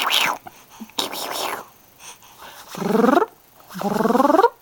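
A baby vocalizing: two short breathy bursts, then two loud squeals, each rising in pitch.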